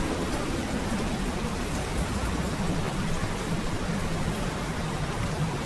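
Steady heavy rain with a low rumble underneath, an even hiss that does not let up.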